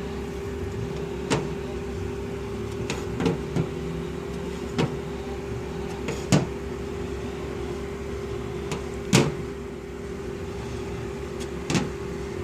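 Scattered sharp knocks, about eight of them at uneven intervals, over a steady machine hum.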